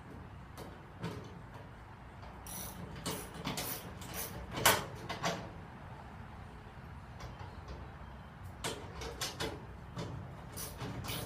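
Ratcheting socket wrench clicking in short runs as it drives a garage door handle's bolt, with one louder knock about halfway through.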